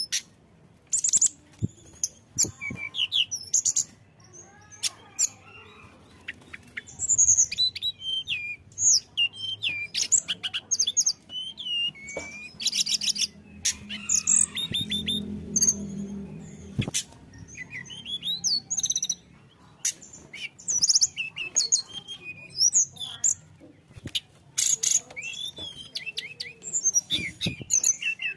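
A tledekan gunung (blue flycatcher) singing a fast, varied song without pause: quick high whistled notes, sliding chirps and short trills, with sharp clicking notes mixed in.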